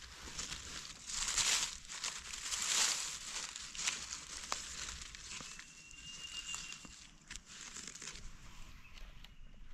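Dry leaf litter crackling and rustling as gloved hands dig a white mushroom out of the forest floor, loudest in two bursts in the first three seconds, with a few sharp crackles after.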